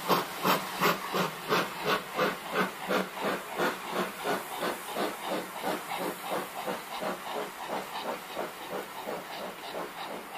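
Steam locomotive pulling a passenger train away, its chuffing exhaust beats quickening from about three to about five a second and fading as it moves off, with a steady hiss of steam.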